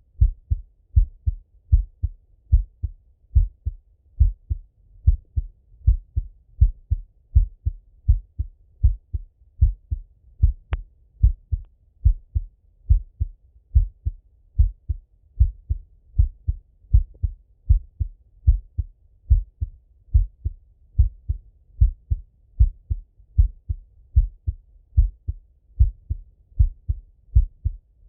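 A man's heartbeat heard through a Littmann stethoscope: a steady, even rhythm of paired low lub-dub thumps. There is one brief click near the middle.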